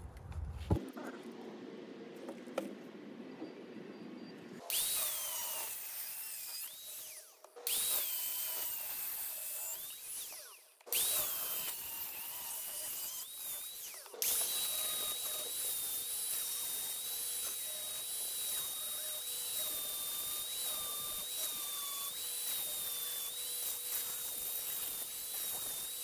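Angle grinder with a cut-off wheel cutting square steel tubing: a high whine that sags as the wheel bites into the metal and recovers. It comes in four runs, starting about five seconds in, the last one long.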